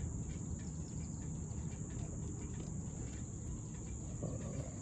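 Crickets chirring in a steady, unbroken high-pitched drone, with faint scattered clicks.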